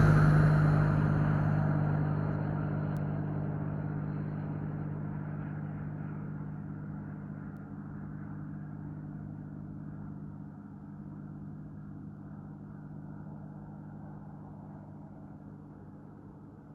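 A motor vehicle passes close by, its engine note dropping in pitch as it goes past, then its steady drone fades slowly into the distance.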